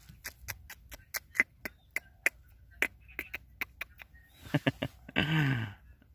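A run of sharp tongue clicks, about three to four a second, made to call a puppy. About five seconds in, a brief vocal sound falling in pitch.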